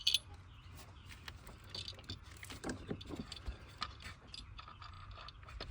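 Faint, irregular small clicks and taps of metal bolts being handled and fitted while they are moved from the old ignition coil pack to the new one.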